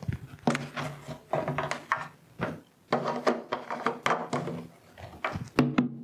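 Hollow knocks and thunks of an empty plastic jerry can being handled and set down, a rapid uneven series of clunks, some with a short low ring.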